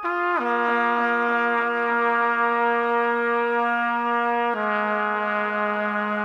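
Trumpet played through a Strymon Timeline delay pedal: a quick downward slide into a long held low note, with echoes pulsing over it about three times a second. About four and a half seconds in it steps down to a lower held note.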